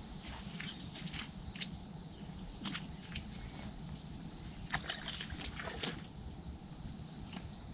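Irregular water splashes and sloshing at the lake margin around a landing net as a hooked fish is played in close. Birds chirp faintly near the start and near the end.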